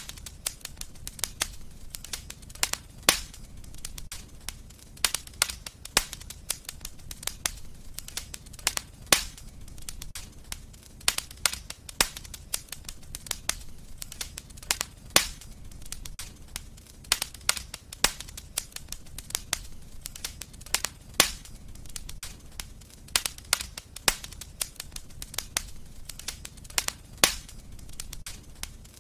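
Wood fire crackling: irregular sharp pops and snaps, several a second, over a low steady rumble of burning.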